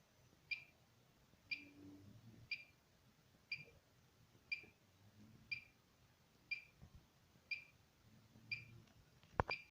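Meter alarm beeping: a short high-pitched beep repeating evenly about once a second, with a sharp click near the end.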